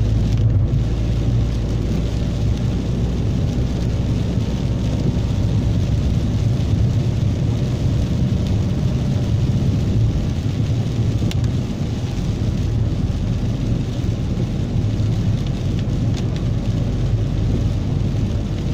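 Steady low rumble of a car's engine and tyres on a wet road, heard from inside the cabin, with rain hitting the windscreen.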